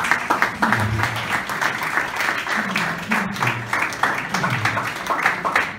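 Audience applauding, a dense, steady clapping from many hands, with a few voices underneath.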